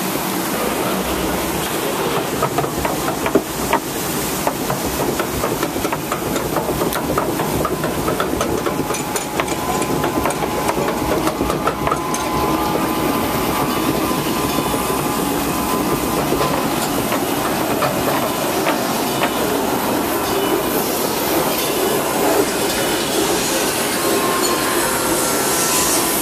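Log flume ride's lift-hill chain conveyor clattering with a dense run of fine clicks as it hauls the log boat up the wet wooden trough, with a steady hiss of running water.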